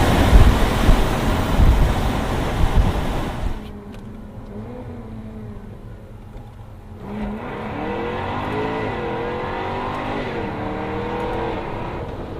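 Jaguar F-Type R's supercharged 5.0-litre V8 under hard throttle, loud and noisy with a few sharp peaks in the first few seconds. Then, after a sudden drop in level, the engine runs at lighter load, its note rising and falling as it revs up and eases off several times.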